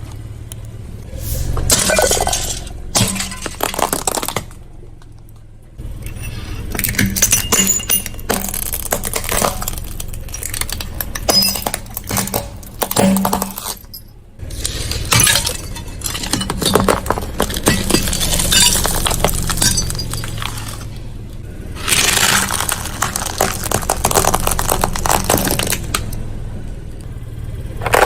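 A car tyre rolling slowly over brittle objects and crushing them: dense crackling, crunching and snapping with glassy breaking, over the low steady sound of the car. It stops short and starts again several times.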